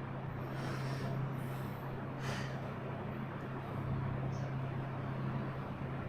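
A steady low mechanical hum, with a faint brief noise about two seconds in.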